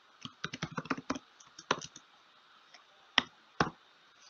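Typing on a computer keyboard: a quick run of key clicks in the first second or so, a few more shortly after, then two louder single clicks about three seconds in.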